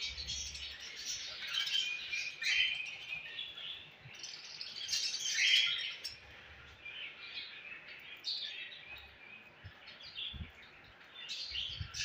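A flock of budgerigars chirping and chattering, many short calls overlapping, loudest about halfway through.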